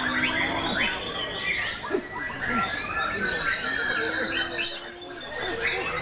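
Many caged white-rumped shamas (murai batu) singing at once in a contest: a dense, unbroken tangle of overlapping whistles, trills and chirps.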